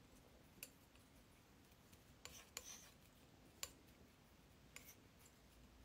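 Near silence, broken by a few faint clicks and brief scrapes of a metal palette knife mixing oil paint on a glass palette.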